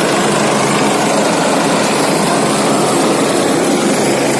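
Helicopter coming in to land close by, its rotor and turbine engines running steadily and loud, with the dense rushing noise of the rotor wash.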